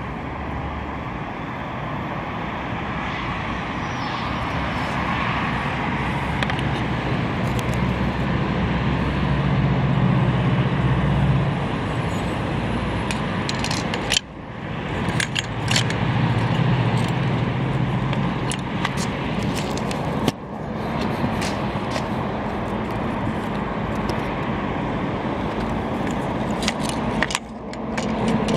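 Steady road traffic noise, with light metallic clinks and scrapes from the wiper motor and steel linkage being handled.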